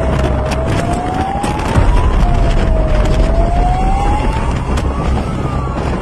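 Fire truck's siren on a slow wail, its pitch rising and falling about every three seconds, heard from on board over the low rumble of the truck's engine and road noise.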